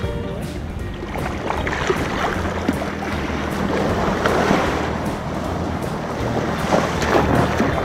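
Small sea waves breaking and washing up the sand close to the microphone, with wind buffeting the microphone and a steady low hum underneath.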